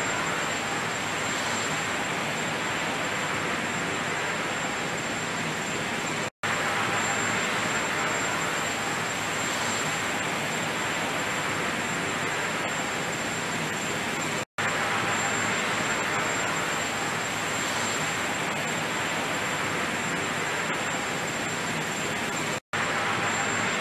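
Steady rushing noise with a faint high whine, cut by a brief dropout to silence about every eight seconds.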